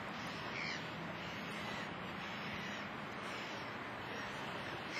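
Outdoor dockside ambience: a steady rushing noise with a faint low hum under it, and a few short bird calls, one less than a second in, another near two seconds and one at the very end.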